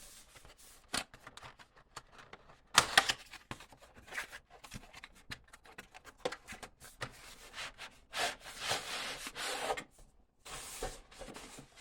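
Socket set's box being opened and handled: rubbing and scraping with many scattered clicks and a few longer rustling bursts.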